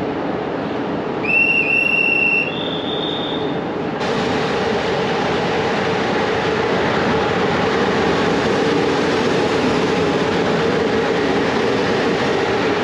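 Two short high signal tones, the second higher than the first, sound about a second in. After that comes a train's steady running noise with a low hum, from a locomotive at the station platform.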